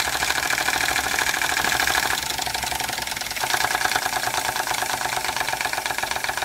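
Antique Bing vertical toy steam engine running fast under steam, with a rapid, steady mechanical beat. It is driving an old Bing transmission by a belt.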